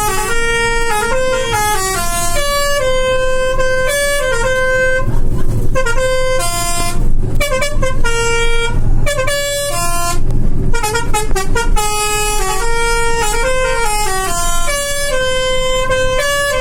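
Telolet musical horn of an Azka Wijaya bus playing a tune of short stepped notes that rise and fall. The phrase repeats with brief breaks between runs, and it is loud throughout.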